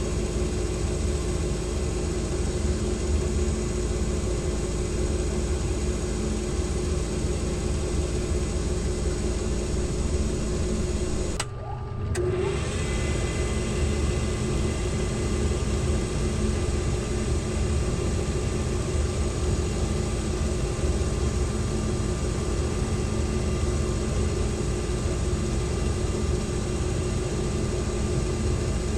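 A machine motor running steadily with a constant hum, briefly dropping out about eleven and a half seconds in.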